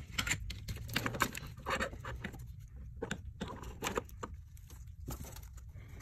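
Irregular scraping, rustling and clicking of a gloved hand working at the rubber throttle-cable grommet in a car's firewall, trying to pull it out.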